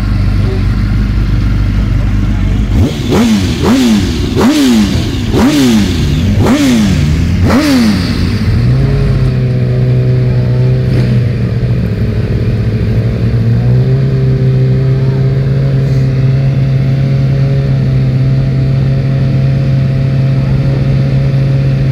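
Racing motorcycle engines on a start grid: idling, then about six sharp throttle blips roughly a second apart, then settling into a steady fast idle that steps up slightly about halfway through.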